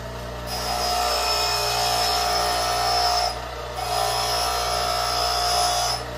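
A grinder's wheel grinding the tip of a steel drill bit to sharpen it, in two passes with a short break about three seconds in. Each pass is a steady grinding hiss with a high whine, over the constant hum of the running motor.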